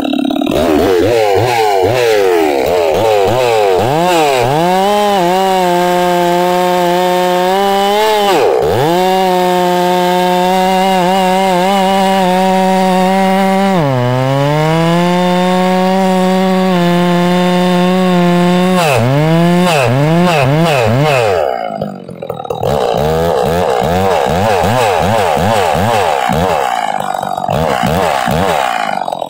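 Ported Farmertec G660 chainsaw with a 28-inch full-chisel chain bucking a log: it winds up to full throttle and holds a steady high pitch, sagging briefly twice as it bogs in the cut. About 21 seconds in it drops off, then is revved again with an unsteady, wavering pitch.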